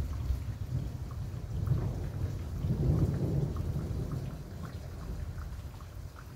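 Rolling thunder rumbling low, swelling about halfway through and dying away toward the end, with raindrops striking a surface throughout.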